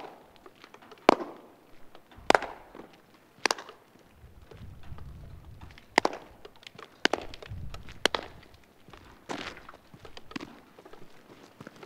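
Single hand claps, about one a second and irregularly spaced, each followed by a short echo off the flat concrete wall of a large building. Footsteps on pavement sound faintly between the claps.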